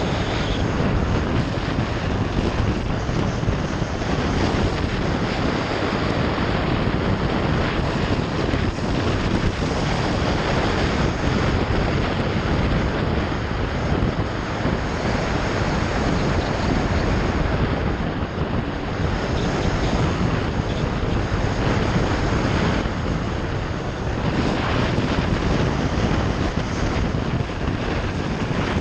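Steady wind rush on the microphone and road noise from a motorbike riding along.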